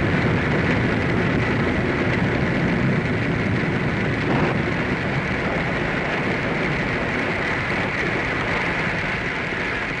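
Radio sound-effects rain: a steady rushing patter of dry grains falling from a funnel and onto a spinning disc and paper, standing in for a downpour in a storm.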